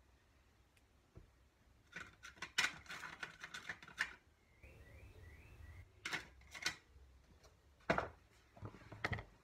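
Metal hand tools and small engine parts clinking and clattering on a workbench, a quick run of sharp clicks about two seconds in, then a few separate knocks later on.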